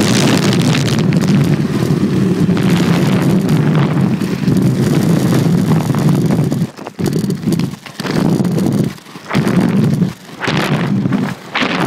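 Inline skate wheels rolling fast down coarse asphalt, a loud steady rumble; in the second half it cuts in and out several times.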